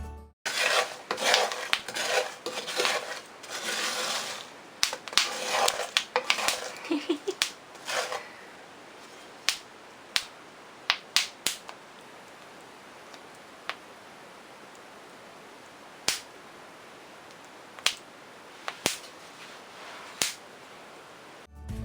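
Hands handling things in a kitchen: rustling and crinkling mixed with quick clicks for about eight seconds, then single sharp clicks and taps every second or two.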